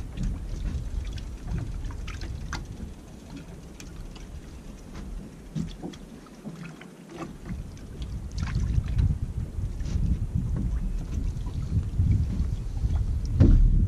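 Wind buffeting the microphone and water slapping against the hull of a small drifting boat, with a few faint clicks and knocks. The rumble grows stronger about halfway through.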